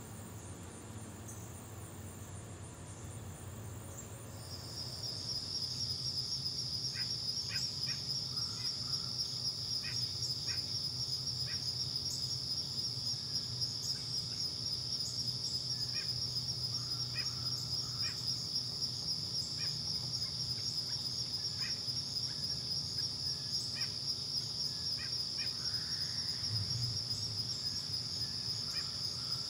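An insect trilling continuously at a high pitch, setting in about four seconds in, over a faint outdoor background with scattered short ticks.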